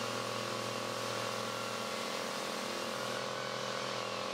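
Random orbital sander with a dust-extraction hose, running on a rough glued-up wooden board to clean off excess glue and smooth the joint: a steady whir with a hum.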